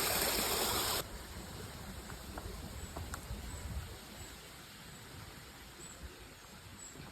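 Steady rush of running water that cuts off abruptly about a second in. A quiet outdoor background follows, with a low rumble and a scattering of faint, short, high chirps.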